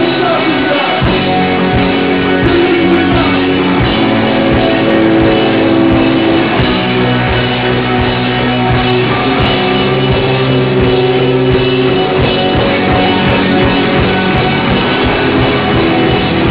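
A live hardcore punk band plays loud distorted guitars, bass and drums, with shouted vocals over the top. The drums come in hard about a second in. The recording is heavily compressed and sounds dull, as if made on a camcorder at the side of the stage.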